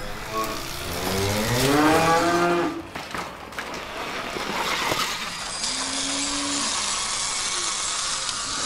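Cows mooing, a long call with rising pitch near the start and a shorter one past the middle, over the steady running noise of an Alta Motors electric dirt bike.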